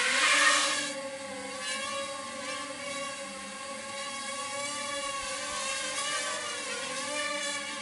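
Small quadcopter's motors and propellers spinning up for lift-off, loudest about half a second in, then settling into a steady hovering whine that wavers slightly in pitch as the throttle is adjusted.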